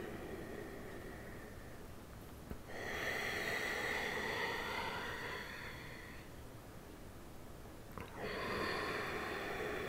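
A woman's slow, deep breaths through the nose during a pranayama breathing exercise, heard as long airy rushes: one tails off about two and a half seconds in, a louder one runs from about three to six seconds, then after a quieter gap another begins about eight seconds in.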